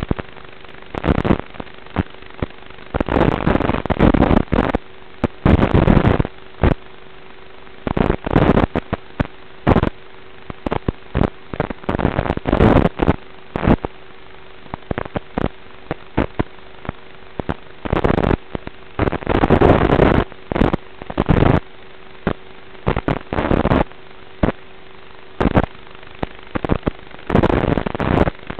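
Static from an analog FPV video receiver: a steady hiss and a low hum, broken by irregular loud bursts of crackling noise, each from a fraction of a second to about a second long. This is typical of the analog video link breaking up.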